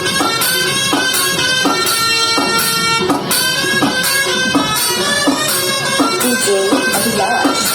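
Music played loud over a sound system: a melody of held notes from a reedy wind instrument over a steady drum beat.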